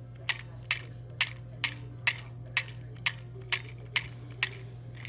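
Miniature toy popcorn machine's knob being turned, giving sharp, evenly spaced plastic clicks about twice a second, about ten in all, that stop shortly before the end.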